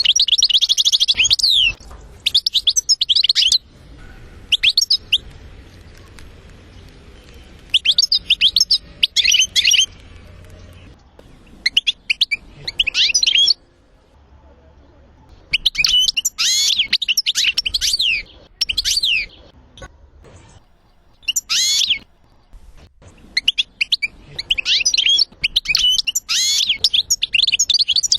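Songbird song: bursts of rapid, high, twittering trills with quick up-and-down sweeps, each run lasting one to two seconds, separated by pauses of a second or more.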